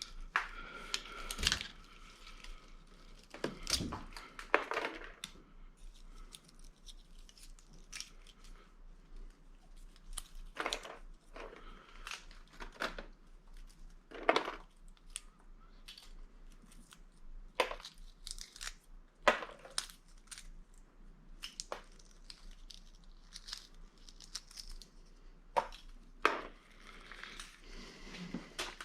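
Irregular clicks and scrapes of hand tools working on an electric motor, pulling out its copper windings.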